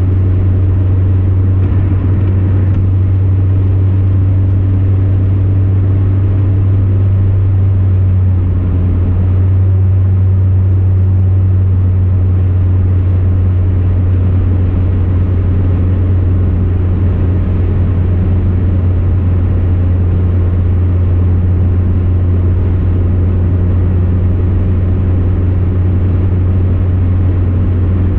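Steady low drone of a vehicle cruising at highway speed, heard inside the cabin: road and engine rumble that stays even throughout.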